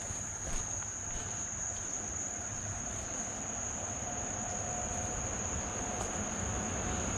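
Steady, high-pitched chorus of insects, one unbroken tone, with a low rumble underneath.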